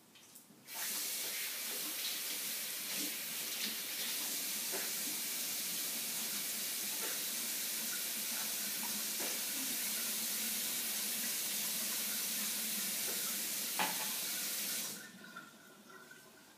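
Kitchen tap running steadily into the sink, turned on a little under a second in and shut off near the end, with a few light clinks over the water.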